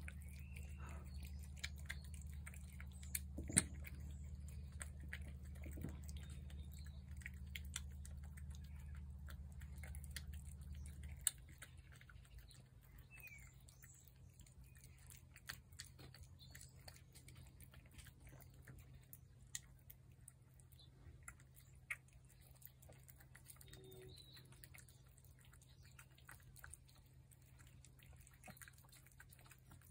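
Two cats chewing wet cat food off paper plates: faint, irregular clicks and smacks of eating. A low steady hum underneath cuts off about eleven seconds in.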